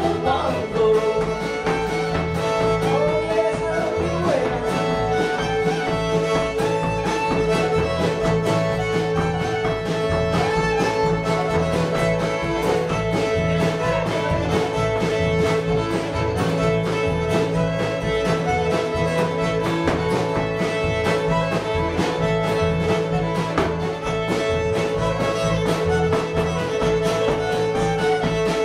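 Live acoustic string band playing an upbeat bluegrass-blues tune: fiddle over strummed acoustic guitar and a walking upright bass, with the guitarist's dance steps stomping the floor in time.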